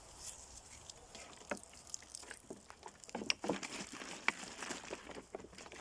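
Faint, irregular patter of water splashing and dripping onto the garden beds and leaves as they are watered, with small scattered ticks.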